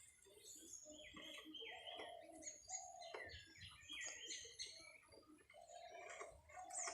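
Faint birds chirping and calling, many short overlapping notes, some gliding.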